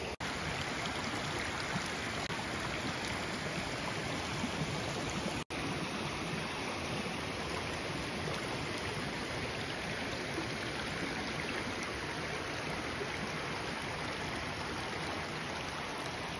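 Shallow creek water running steadily over rocks and shale, broken twice by a brief drop-out.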